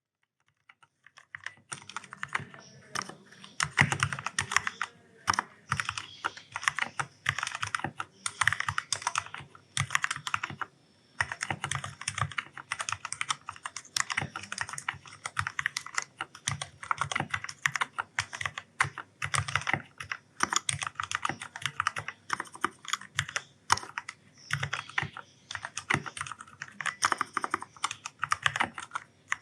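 Typing on an Ajazz K610T mechanical keyboard with black switches: a fast, irregular run of key clacks, starting about a second and a half in and broken by brief pauses between bursts.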